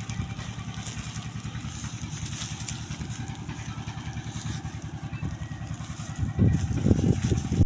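A small engine running steadily with a rapid low pulse, with a few louder low thumps near the end.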